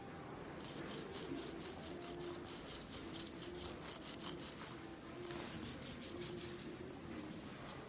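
A plastic chain-cleaning brush scrubbed rapidly back and forth along a bicycle chain: a rasping rub at about five strokes a second, with a short pause about five seconds in before a second, shorter run.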